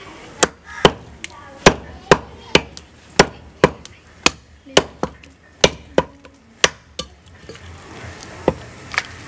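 Heavy butcher's knife chopping goat meat on a wooden log chopping block: a steady run of sharp chops, about two a second. The chopping stops about seven seconds in, and two lighter chops follow near the end.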